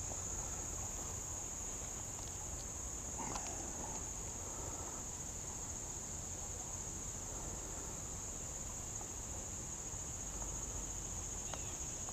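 A steady, high-pitched chorus of insects, with a couple of faint ticks.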